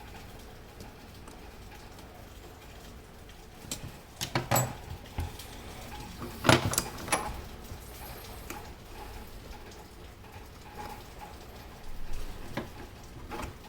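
Handling noises: a few irregular clicks and knocks, in a cluster between about four and seven seconds in and again near the end.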